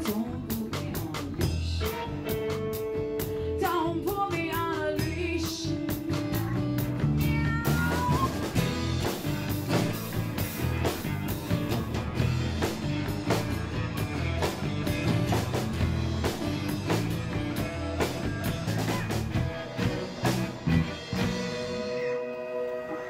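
A live rock band playing a blues-rock instrumental passage on electric guitar, acoustic guitar, electric bass and drum kit, with bending lead-guitar notes a few seconds in. The bass and drums drop out about a second before the end, leaving the guitars.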